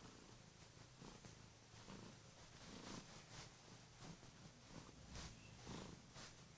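Kurilian Bobtail cat purring steadily, a low, pulsing hum.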